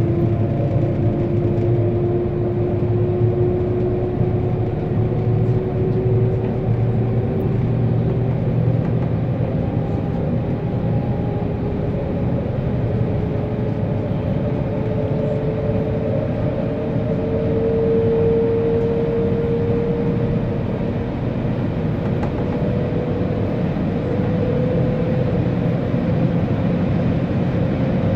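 Shanghai Transrapid maglev train heard from inside its driver's cab while under way: a steady rumble and rush, with a whine that climbs slowly in pitch as the train gathers speed.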